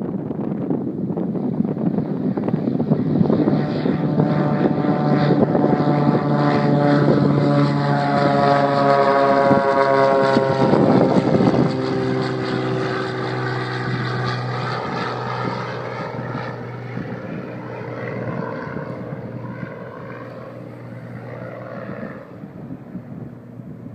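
Beechcraft G36 Bonanza's Continental 550 cubic-inch six-cylinder piston engine and propeller at takeoff power. The sound builds to its loudest about ten seconds in, drops in pitch as the plane passes, then fades steadily as it moves away.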